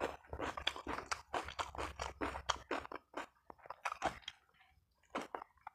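A person chewing and crunching a mouthful of food with quick, irregular bites. The chewing is dense for about three seconds, then thins out, with a few last chews near the end.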